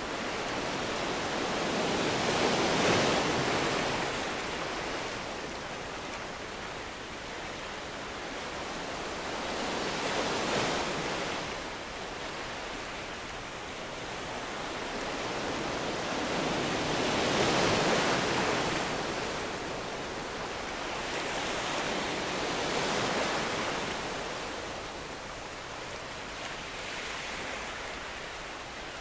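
Ocean surf breaking and washing up the shore, a rushing hiss that swells and ebbs in slow surges about every six to seven seconds.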